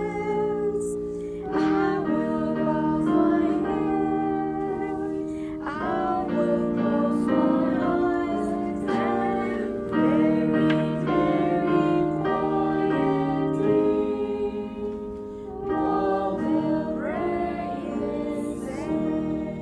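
A children's Sabbath school song sung with piano or keyboard accompaniment, a woman's voice leading, fading out near the end.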